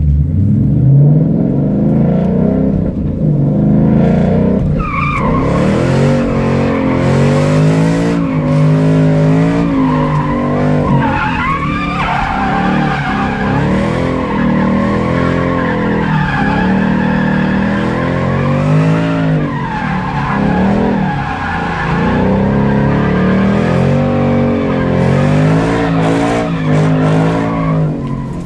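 2014 Ford Mustang GT's 5.0-litre V8, through a Roush cat-back exhaust and heard from inside the cabin, revving up and falling back over and over through a drift, with the tires squealing.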